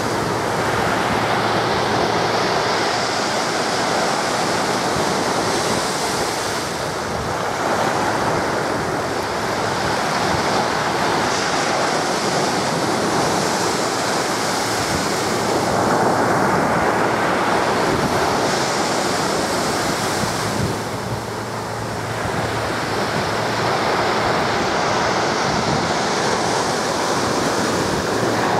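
Sea surf washing onto a pebble beach: a continuous rush that swells and eases every several seconds, with wind on the microphone.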